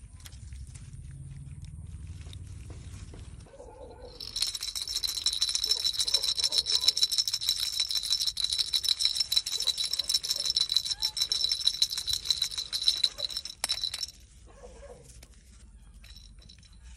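A toy rattle shaken rapidly, a dense jingling rattle that starts about four seconds in, runs for about ten seconds and stops suddenly.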